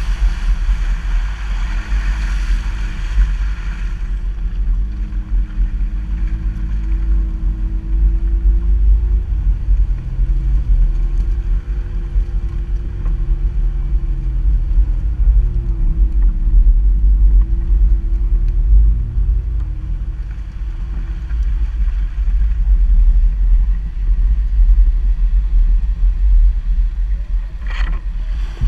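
Mitsubishi Pajero Sport's engine running at low revs while crawling over a rough dirt track, its pitch rising and falling gently, under a heavy low rumble of wind buffeting the microphone. A hiss fades about four seconds in, and there is one sharp click near the end.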